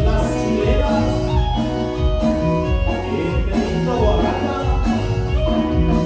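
A band playing an upbeat Oaxacan chilena loudly, with sustained melody notes over a steady beat and a strong bass line.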